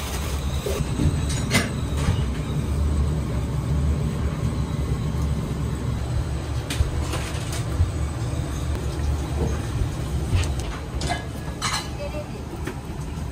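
Steady low rumble of kitchen machinery, with several sharp clicks and knocks of utensils and containers being handled.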